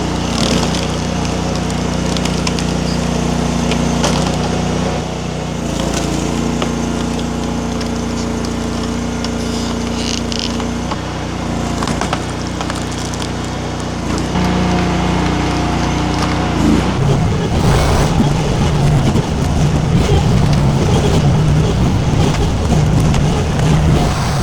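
Mini skid steer's engine running steadily, its note shifting a couple of times as the load changes, then turning rougher about two-thirds of the way through.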